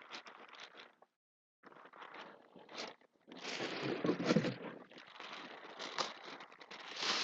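Packing foam and packaging being handled: irregular rustling, crinkling and small clicks, with a brief pause about a second in and busier handling in the second half.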